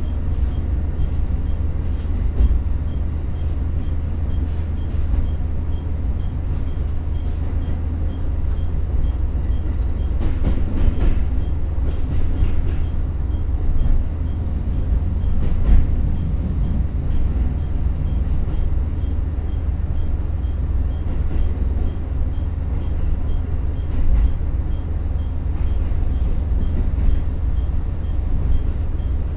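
Steady low rumble heard from inside the passenger cabin of an ET122 diesel railcar: its Komatsu SA6D140HE-2 six-cylinder diesel engine and running gear. A few faint knocks come through about 10 to 16 seconds in.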